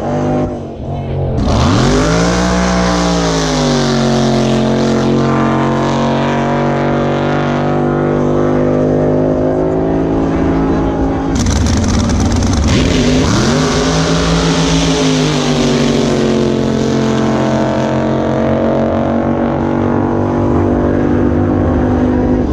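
Racing jet boat engines running hard at high revs, a loud steady note that drops sharply in pitch and climbs back twice, about two seconds in and again about twelve seconds in.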